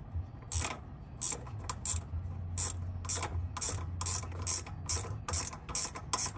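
Ratcheting wrench clicking in a steady run, about two to three clicks a second, as it tightens a mounting bolt on a GY6 engine's ignition coil bracket.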